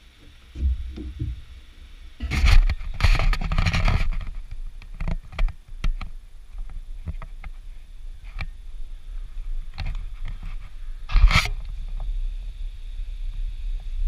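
Handling noise from a GoPro action camera being picked up off a wooden railing and carried: low thumps under a second in, a loud scraping rustle about two seconds in, then scattered clicks over a low rumble, and another short loud scrape about eleven seconds in.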